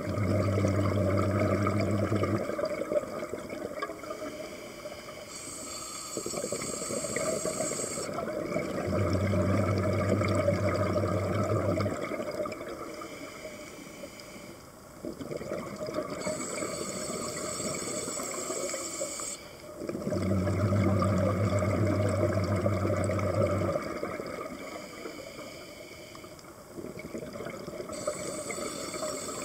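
Scuba diver breathing through a regulator underwater: the low bubbling rumble of an exhalation, then the high hiss of an inhalation, repeating in a slow cycle of about ten seconds, with three exhalations and three inhalations.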